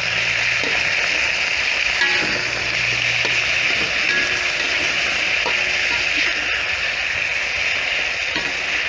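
Chicken pieces sizzling steadily as they brown in hot oil in a wok, with a metal spatula stirring and turning them and giving a few light ticks against the pan.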